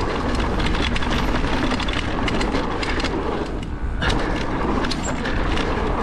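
Haibike AllMtn electric mountain bike ridden down a dirt flow trail: tyres rolling over the ground and the bike rattling and knocking over bumps. There is a short lull a little past three and a half seconds in, then a knock.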